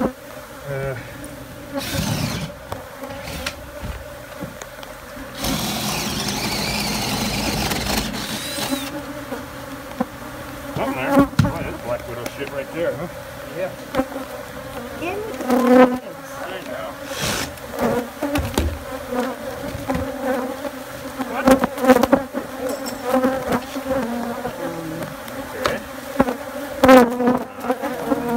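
A colony of Africanized honey bees buzzing steadily, many bees in flight close around. Repeated knocks and clatters come through the buzz as the shed floor is worked, and a loud rushing noise runs for a few seconds about six seconds in.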